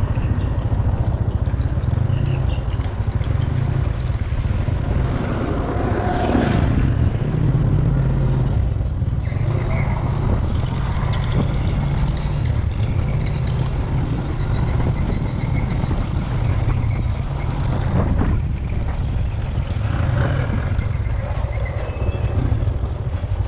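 Motor scooter riding along a street: a steady low rumble of engine, road and wind noise, with a few brief sharper sounds from passing traffic.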